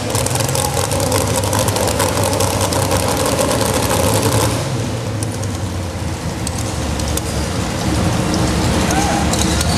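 Modified 4x4 pulling truck's engine idling steadily at the line. It drops a little about halfway through and picks up again near the end.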